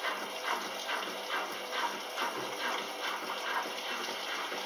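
Kelvinator K605 washing machine filling with water, a steady rushing gush that pulses about two to three times a second.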